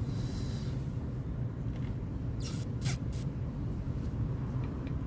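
Steady low background rumble of outdoor noise, with three short hissing rustles about halfway through.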